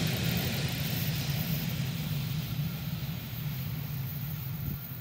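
Matterhorn Gotthard Bahn regional train running away on the rack-railway section. Its steady low rumble of wheels on rail fades as the last coach draws off.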